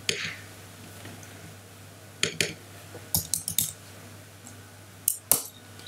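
Computer keyboard and mouse clicks: two clicks, then a quick run of keystrokes about three seconds in, then two more clicks near the end, over a steady low hum.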